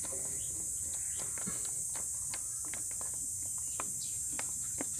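Scattered light clicks and taps of a screwdriver and hands working the screws on a motorcycle's plastic air filter box cover, over a steady high-pitched hiss.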